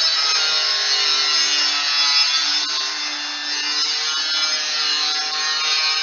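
Wood being sawn, throwing off sawdust: a steady, unbroken rasping hiss with a faint hum underneath.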